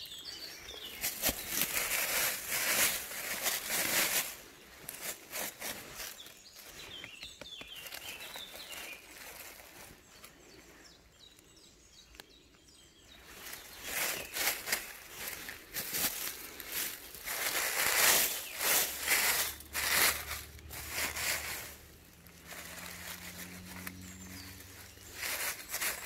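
Dry oak leaf litter rustling and crunching in bursts as a gloved hand pushes through it to pull up a porcini mushroom.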